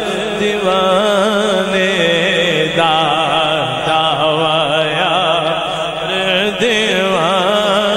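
A man singing a Punjabi devotional naat into a microphone: long, drawn-out melismatic lines with a strong vibrato.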